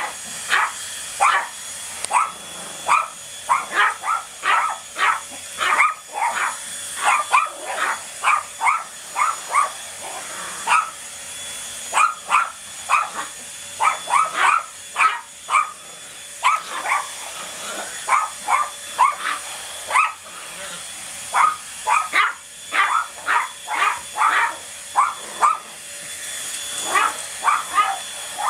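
A small fluffy dog barking sharply and repeatedly at a running Black+Decker stick vacuum, in rapid runs with short pauses, over the steady whine of the vacuum's motor.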